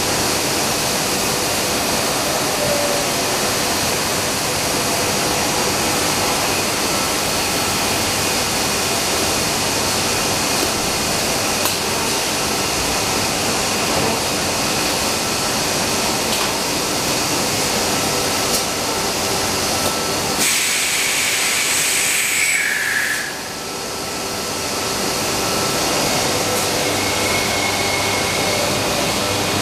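HOMAG CNC woodworking machining center running with a steady, loud rushing noise while its tool head moves over the table. About two-thirds of the way through, a high whine comes in, glides down in pitch and stops; the noise drops for a moment and then builds back up.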